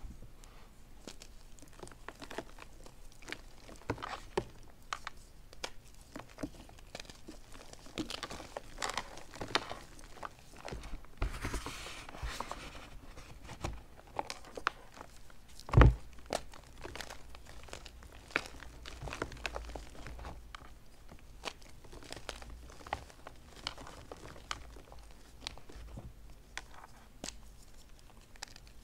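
Hands crushing and crumbling blocks of BSN gym chalk, coated in dried yellow soap, paint and cornstarch paste, into loose chalk powder: a run of dry crunches and crackles, with one much louder crack about halfway through.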